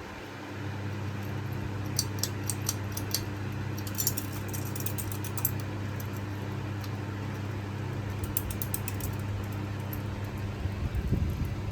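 Harbor Breeze Armitage ceiling fan running, its motor giving a steady low hum, with a few short runs of light, high clicking or rattling.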